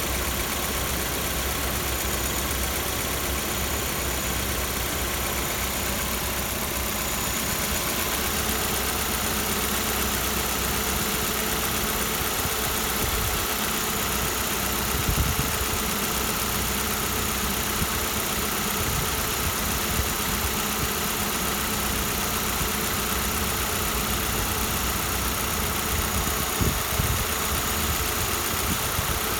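Kia Soul second-generation 1.6 engine idling steadily, the engine whose owner reports a knock when it is cold. A couple of faint thumps come about halfway through and near the end.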